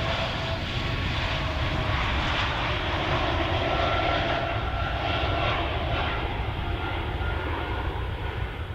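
Airbus A220-300's geared turbofan engines running at high power for a go-around after main gear touchdown: a steady rush of jet noise with a faint whine, fading near the end.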